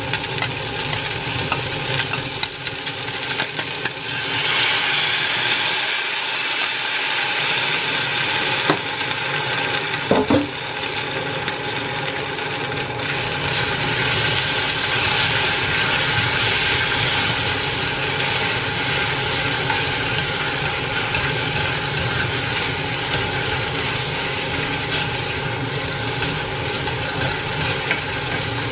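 Pork and vegetables sizzling in a hot saucepan as sauce is poured in, the sizzle growing louder about four seconds in, then stirred with wooden chopsticks. A couple of short knocks against the pan about a third of the way through.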